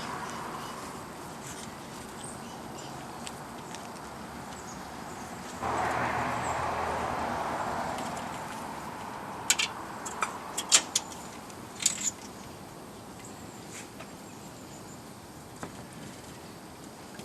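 Hands working aluminium bonsai wire onto a juniper branch: a stretch of rustling about six seconds in, then a quick run of sharp clicks a few seconds later.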